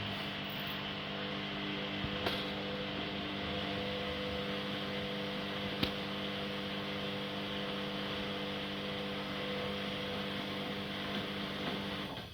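Haier HW100-1411N front-loading washing machine spinning: a steady motor hum with several held tones over a rushing noise, two faint clicks, cutting off abruptly near the end.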